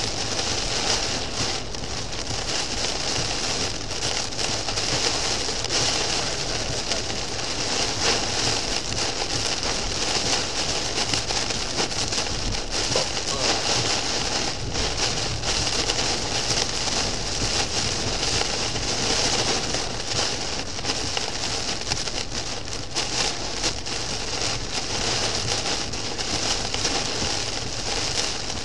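Torrential rain pelting a moving car's roof and windshield, heard from inside the cabin as a dense, steady hiss.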